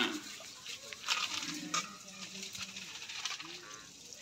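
Steel spoon stirring gram-flour batter in a steel bowl, clinking sharply against the bowl a few times.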